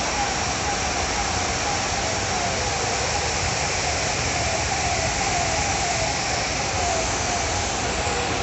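Floodwater rushing along a street as a steady, loud rush. Over it, a falling siren-like tone repeats about one and a half times a second.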